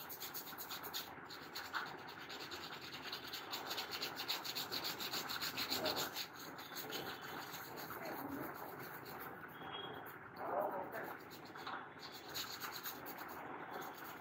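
A small bristle brush scrubbing a wet, soapy laptop motherboard in quick back-and-forth strokes, washing liquid-damage residue off the circuit board and its connectors.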